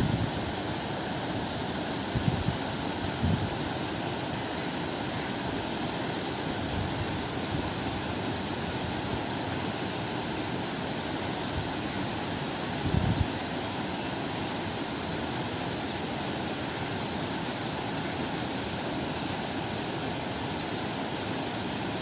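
Steady rush of a river pouring over low rock-ledge falls and rapids. A few brief low gusts of wind hit the microphone, the strongest about 13 seconds in.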